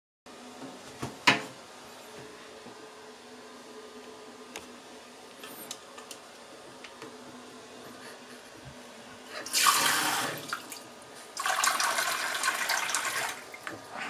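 Kitchen tap water running into a plastic measuring cup held under the faucet, in two spells of a second or two, about halfway through and again near the end. A sharp click about a second in.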